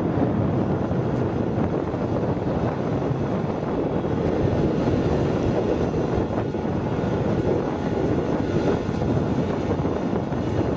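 Steady, even running noise of a machine, with wind buffeting the microphone.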